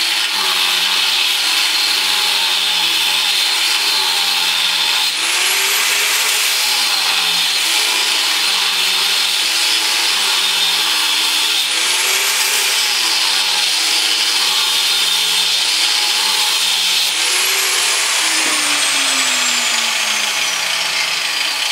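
Angle grinder cutting a chamfer into a steel crankshaft along a cracked, welded joint, with a loud, steady grinding noise. The motor's pitch dips again and again as the disc bites under load and picks back up. Near the end the whine falls away in one long slide as the disc spins down.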